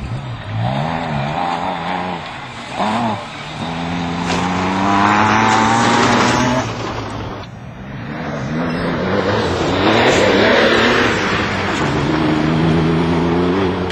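Suzuki Swift-based off-road racer's engine revving hard. There are a few quick blips of the throttle, then two long pulls with the pitch climbing as it accelerates, the first one cut off sharply partway through.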